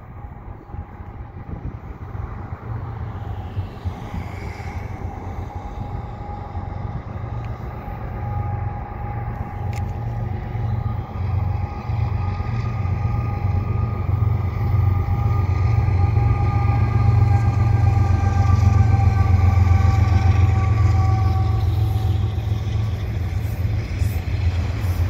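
CN freight train headed by a GE ES44 diesel-electric locomotive approaching and passing close by: a deep engine rumble that grows louder and is loudest as the locomotive goes by. A whine of several tones runs over it, slowly falls in pitch and fades out near the end as the autorack cars roll past.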